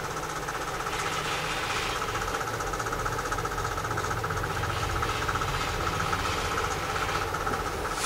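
A steady machine hum with a fast, even pulse, under soft gritty swishes of a rotary cutter rolling through layered cotton fabric on a cutting mat.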